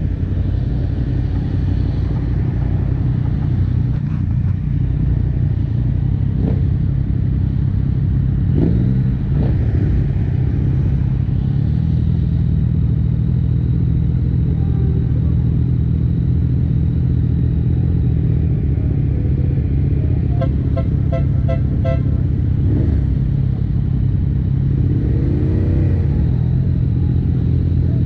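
Yamaha Ténéré 700 parallel-twin motorcycle engine running at a steady pitch, with a few brief rising-and-falling engine notes from other vehicles. A short run of rapid, evenly spaced ticks about three-quarters of the way through.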